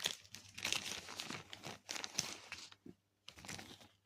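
Plastic packaging bag crinkling in irregular rustles as it is handled, as when a small bag of screws is picked out of a kit box.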